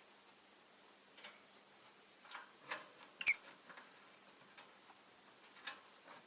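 Rosy-faced lovebird making short, soft chirps and clicks at irregular intervals, the loudest a brief chirp about three seconds in.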